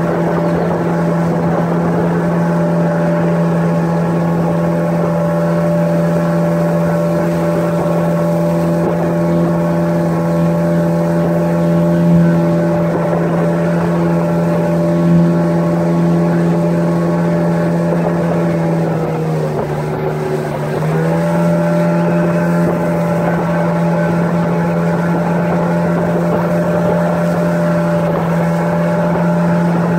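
Outboard motor of a small open boat running steadily underway. About twenty seconds in its pitch briefly drops as it eases off, then comes back up to speed.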